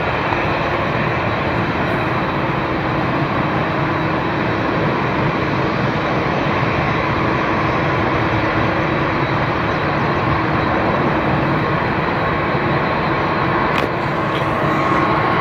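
Boeing 787-8 Dreamliner's twin turbofan engines at takeoff thrust: a loud, steady jet roar with a faint steady hum in it as the airliner rolls, lifts off and climbs away.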